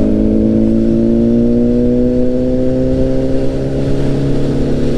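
Honda CBR1000RR's inline-four engine under way, its pitch rising slowly as the bike accelerates, then easing off about three and a half seconds in, over a low rumble of wind noise.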